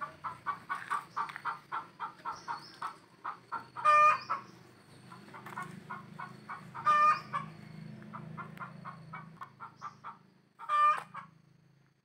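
Chickens clucking in a rapid run of short calls, with a louder call about every three seconds, over a faint low steady hum.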